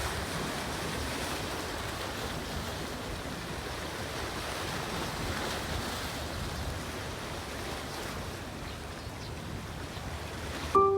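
Ocean surf washing steadily. Near the end it cuts off suddenly and piano notes begin.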